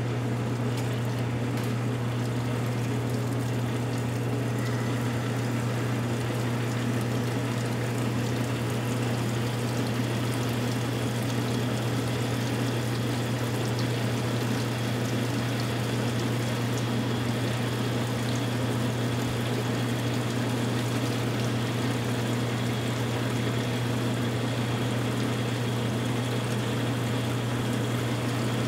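Wilton horizontal bandsaw running steadily as its blade feeds down through metal stock, coolant flowing over the cut: a constant motor hum under a wash of flowing coolant. A faint high whine from the blade joins about ten seconds in.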